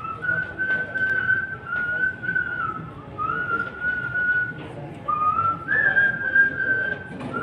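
A man whistling a song melody into a handheld microphone: one clear whistled tone in phrases of a second or so, holding notes and sliding between them.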